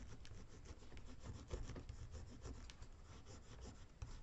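Metal ball-tip stylus from a flower shaping kit rubbed in short strokes across a cardstock petal on a shaping mat: a faint, irregular scratchy rubbing as vein lines are scored into the paper.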